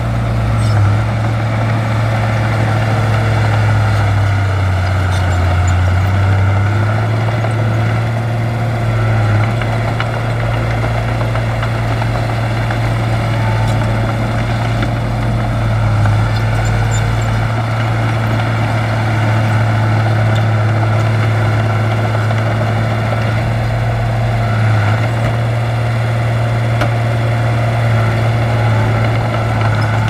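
Heavy earth-moving machine's diesel engine running steadily, a loud low drone with small shifts in its note now and then.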